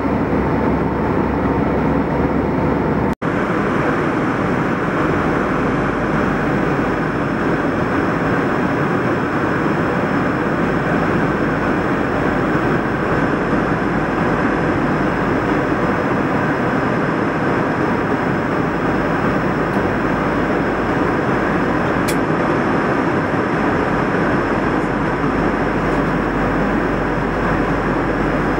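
Steady cabin noise of an Airbus A320 at cruise: a continuous rush of engine and airflow noise heard from inside the cabin, breaking off for an instant about three seconds in.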